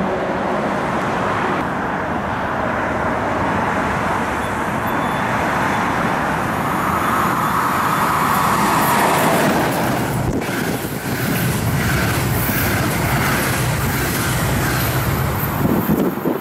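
Steady noise of autobahn traffic, from lorry engines and tyres rolling on the road. A train approaching on the electrified railway line adds to it partway through.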